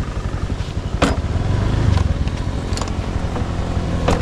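Small automatic motorbike engine running as the bike is ridden, a steady low rumble growing a little louder. Three sharp clicks break through it, about a second in, near the three-second mark, and near the end.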